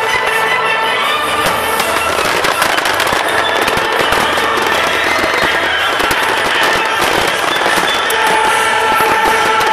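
Fireworks finale barrage: dense, continuous bangs and crackling from many shells bursting at once, over loud music played with the display.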